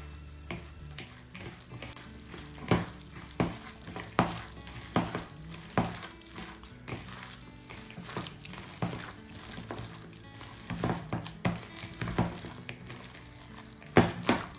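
Hands squeezing and kneading wet raw chicken mince mixed with egg and flour in a bowl: irregular squelches and slaps about once a second, the loudest near the end, over faint background music.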